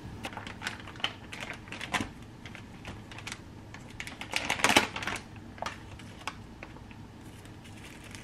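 Plastic bags crinkling and rustling as flour and then sugar are spooned into a plastic bag on a kitchen scale: a string of irregular crackles, with the loudest burst of rustling about halfway through.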